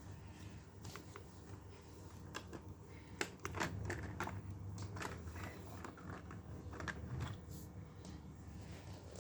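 Lego bricks clicking, tapping and rattling as they are handled and fitted, in irregular bursts that are busiest a few seconds in, over a steady low hum.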